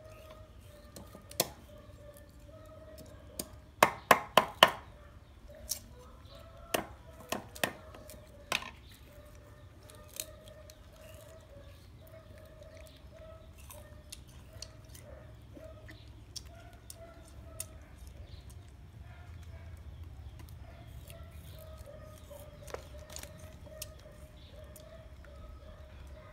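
A large kitchen knife chopping and peeling sugarcane against a wooden chopping block. There is a quick run of four sharp chops about four seconds in, a few more knocks a few seconds later, and light scattered clicks of peeling, over a faint steady background tone.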